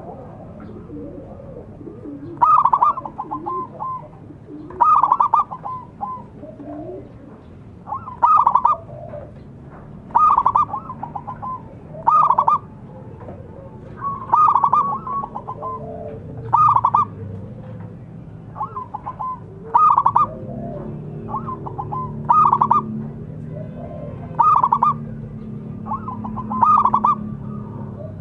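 Zebra dove (perkutut) cooing: short phrases of quick, clipped coo notes repeated about every two seconds.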